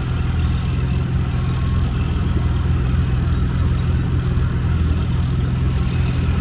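A heavy engine running steadily at an even, low pitch, with no change in speed.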